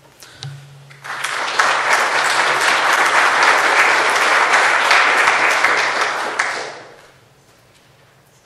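Audience applauding: many hands clapping, starting about a second in, holding steady, then dying away near the end.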